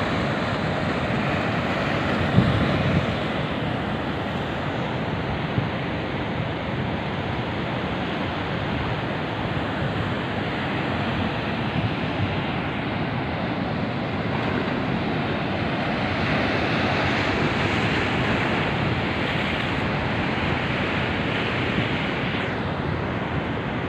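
Large ocean waves breaking and washing over a rocky reef shelf: a steady rush of surf.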